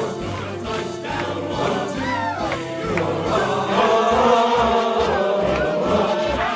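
Music: a choir singing over a steady bass beat.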